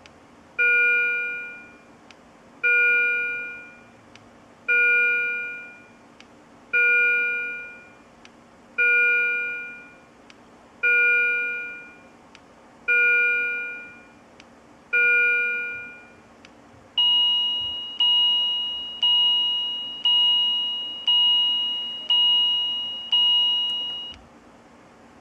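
Hospital patient monitor alarm tones: a chime of several notes that dies away, repeating about every two seconds, nine times. About two-thirds of the way through it switches to a different, faster alarm tone repeating about once a second, seven times, which then stops.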